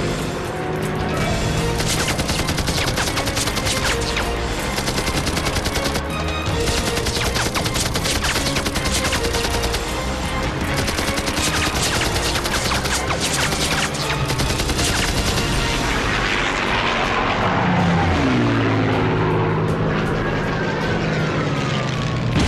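Film battle sound effects: dense, rapid gunfire under a music score. The gunfire thins out after about sixteen seconds, leaving the music and a couple of falling tones near the end.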